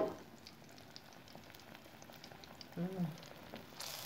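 Tofu frying in hot oil in a wok, a faint steady crackle of sizzling. A sharp clack right as it begins, and near the end a louder hiss of sizzling as the spatula moves the tofu in the oil.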